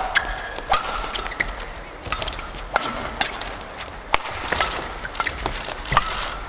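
Badminton rackets striking a shuttlecock in a fast doubles rally: a quick run of sharp cracks about every half second, with court shoes squeaking briefly on the mat between hits.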